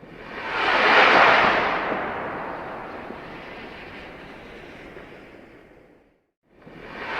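Rocket launch sound effect: a rush of noise that swells to its loudest about a second in, then slowly fades over several seconds and stops. The same launch starts again near the end.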